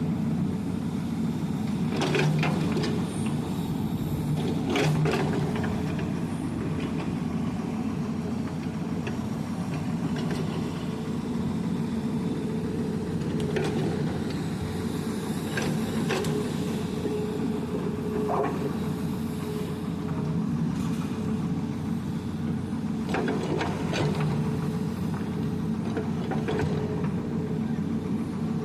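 Excavator's diesel engine running steadily under hydraulic working load, with scattered sharp knocks and clicks from the machine at work.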